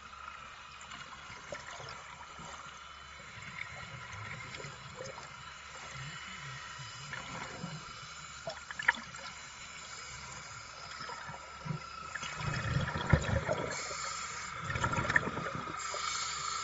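Water sloshing and gurgling against a boat hull as a battery-powered rotating hull-cleaning brush scrubs it, with a faint steady whine and louder splashing about twelve seconds in and again near the end.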